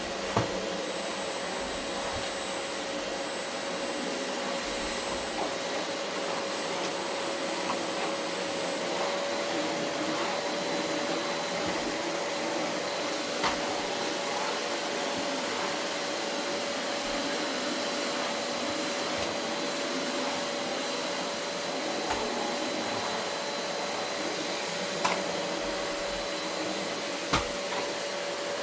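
Vacuum cleaner running steadily over carpet, a constant whine holding one pitch, with a few short sharp clicks or knocks scattered through it, the loudest near the end.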